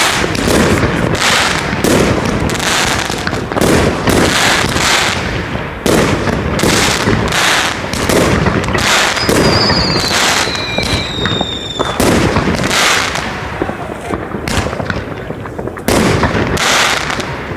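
Consumer firework cake batteries (category F2) firing a rapid series of loud bangs over steady crackling. A high whistle glides down about nine to eleven seconds in.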